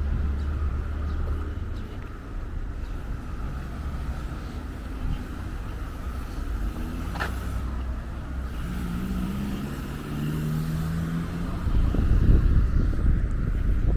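Road traffic: car engines passing by. Wind buffets the microphone more strongly near the end.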